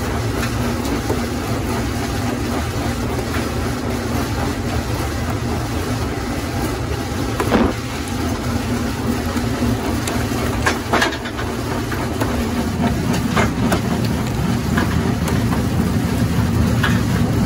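Jaw rock crusher running steadily, with a loud mechanical drone. Several sharp cracks of rock breaking in the jaws stand out, the strongest near the middle.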